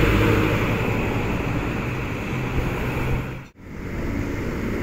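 Diesel engine of a Scania intercity coach running steadily as the coach pulls away, over road traffic noise. The sound cuts out abruptly for a moment about three and a half seconds in, then steady road traffic noise follows.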